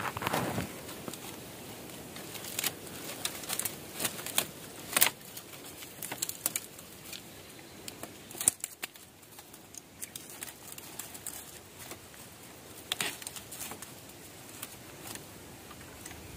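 Dry bamboo stems, twigs and dead leaves rustling and crackling as a gloved hand works into a dense bamboo clump, with scattered sharp snaps. The louder snaps come about five seconds in, near nine seconds and near thirteen seconds.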